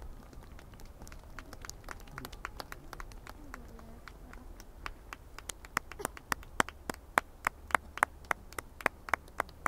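Spectators clapping once the fireworks show is over: scattered, faint claps at first, then a steady clap about three times a second that grows louder over the last four seconds.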